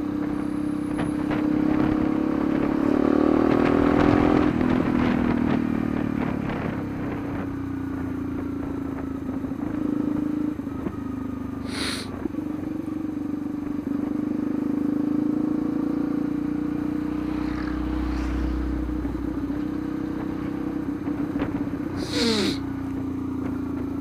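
Yamaha Lander 250's single-cylinder four-stroke engine running under way, revving up a few seconds in and then easing off and holding a steady speed. Two short bursts of hiss cut through, about halfway and near the end.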